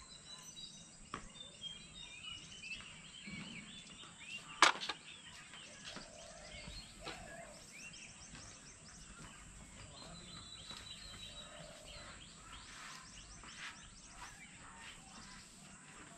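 Several birds chirping and warbling over a steady high-pitched background drone, with one sharp click about four and a half seconds in.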